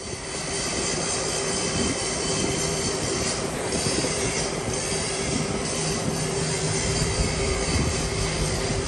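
Loud, steady mechanical noise: a rushing sound with several steady high whining tones over it, starting abruptly and holding throughout.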